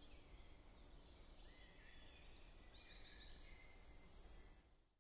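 Faint outdoor ambience with small birds chirping, building to a run of quick, high repeated chirps over the last couple of seconds.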